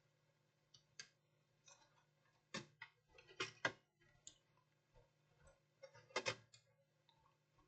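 Near silence with a faint low hum and a few faint light clicks and taps: a single one about two and a half seconds in, a close pair about a second later, and another close pair near the end.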